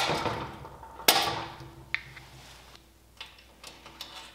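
Steel hydraulic quick-coupler fittings being handled and fitted together. There are two sharp metallic clacks about a second apart, each ringing out briefly, then a few lighter clicks.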